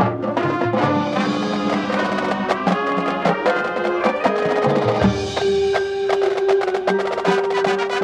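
High school marching band playing its show music: dense, many-voiced ensemble with steady percussion strokes throughout. From about four seconds in, one long note is held under the rhythm.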